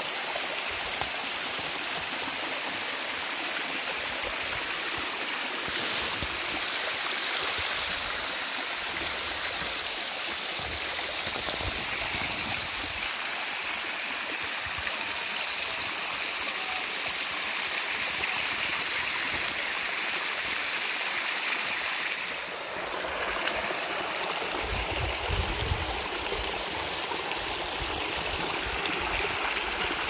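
Muddy rainwater runoff rushing down over rock slabs, a steady, even rush of water. A few seconds from the end a low rumble briefly comes in under it.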